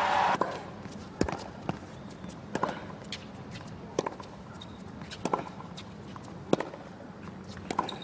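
A tennis ball bounced repeatedly on a hard court before a serve: a string of sharp single bounces roughly a second apart over a quiet crowd. Crowd applause breaks off in the first half second.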